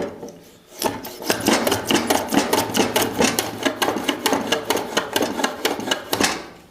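Table saw's blade-height handwheel being cranked to raise the blade, a rapid rhythmic mechanical clatter of about five clicks a second that starts about a second in and stops near the end.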